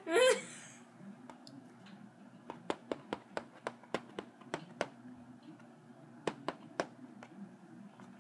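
Light sharp clicks of a playing piece and fingertip tapping square by square across a plastic Mall Madness game board, counting out a move: about a dozen irregular taps, roughly three or four a second, in two runs with a pause between them.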